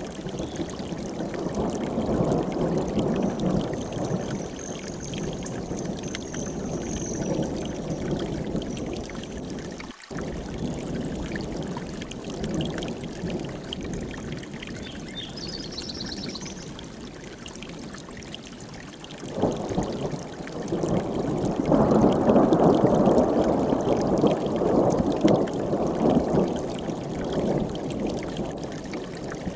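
Mountain stream rushing and splashing over rocks, a steady watery rush that briefly drops out about a third of the way in and grows louder about two-thirds of the way through. A couple of faint high chirps sit above it.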